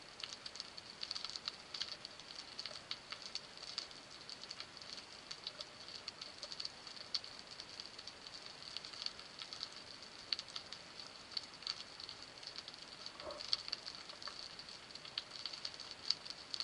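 Underwater crackle of a rocky seabed: dense, irregular small clicks and snaps over a steady high hiss, the kind of crackling typical of snapping shrimp on a reef.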